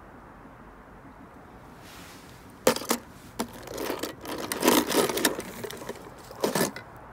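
Die-cast toy cars clattering and scraping against a plastic tub as they are handled, with several sharp knocks, thickest just before the end.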